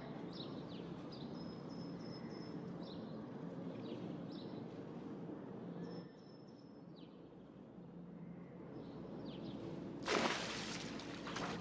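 Short, high bird chirps over steady background noise, with a loud rushing noise about ten seconds in.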